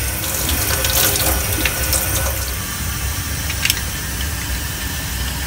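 Tap water running from a faucet and splashing over a metal vise held under the stream in a stainless steel sink, with a few light clicks scattered through it.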